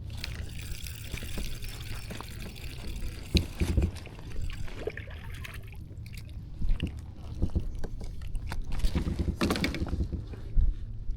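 Water trickling and splashing close by, with a few sharp knocks.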